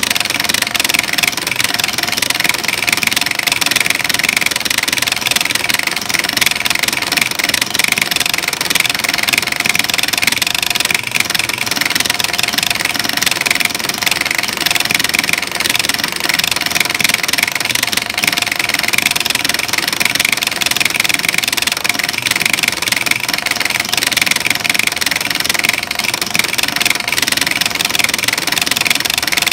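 A button-pressing robot's solenoid actuators hammering arcade push-buttons nonstop, about twenty presses a second, making a rapid, continuous clatter.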